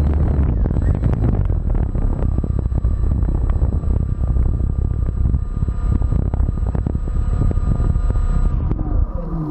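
RC model airplane's propeller motor running steadily at speed while the plane sits still, the propeller wash buffeting the microphone. The motor eases off briefly near the end.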